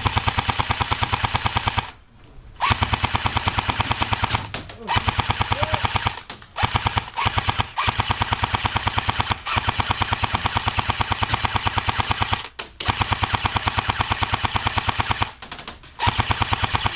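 Airsoft LMG firing full-auto in a series of bursts, a fast even stream of shots. The bursts run from about half a second to three seconds, with short breaks between them.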